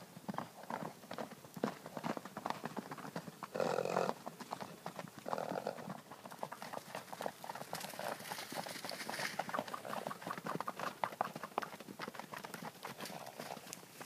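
Hoofbeats of several Icelandic horses galloping and cantering on grass and dirt, an irregular patter of many strikes, with a short louder rush of sound about four seconds in.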